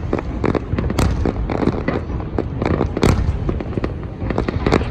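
Fireworks display going off in rapid succession: many sharp bangs and crackles several times a second, a few louder booms about a second and three seconds in, over a continuous low rumble of distant explosions.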